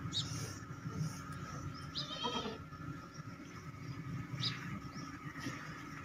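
A Makhi Cheeni goat bleats once, a short high call about two seconds in. A few brief high chirps come before and after it.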